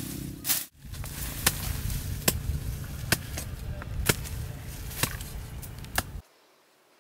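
Digging and scraping in dry, crumbly soil by hand: sharp scrapes and taps about once a second over a low steady rumble. The sound cuts off abruptly near the end.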